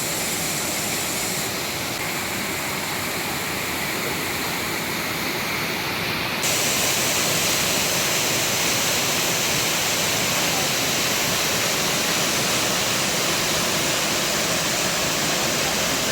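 Waterfall: a steady rush of falling water that gets louder and brighter about six and a half seconds in.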